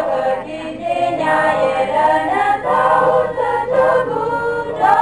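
A small choir singing together without instruments, several voices holding long notes and moving from note to note.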